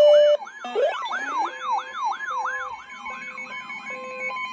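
Emergency alert siren tones: a rapid yelp sweeping up and down about four times a second over a steady high tone, fading out about three seconds in, with short lower beeps repeating underneath. A loud steady tone cuts off just after the start.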